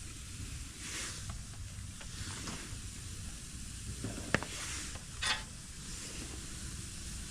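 Burger patties sizzling on a gas grill grate, a steady hiss, with a sharp click about four seconds in and a brief scrape a second later.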